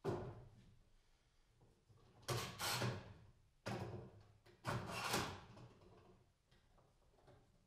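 Parallel bar clamps being handled and set on a glue-up: the clamp jaws slide and knock into place in four short clacking bursts.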